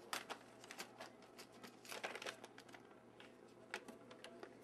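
Faint irregular rustling and small clicks as a one-week-old Labrador puppy crawls and scrabbles about.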